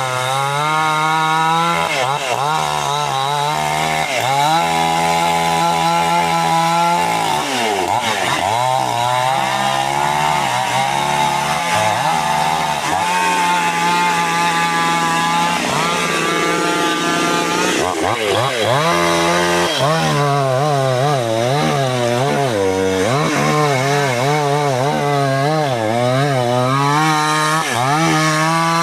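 Two-stroke chainsaw cutting teak wood, its engine pitch repeatedly sagging under load and climbing back up as the bar bites and eases off.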